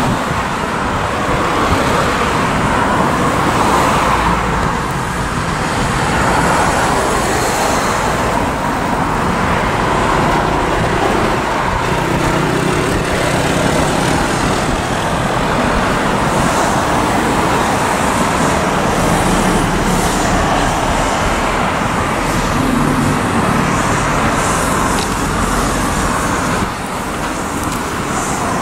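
Steady rushing hiss from the steam locomotive 60009 Union of South Africa, an LNER A4 Pacific, standing in steam with steam and exhaust escaping continuously.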